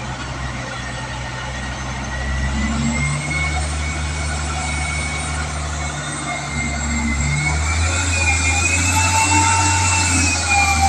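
Hyster reach stacker's diesel engine running under load as it lifts a shipping container, with a high wavering whine over the low drone. About seven and a half seconds in, the engine revs up and grows louder.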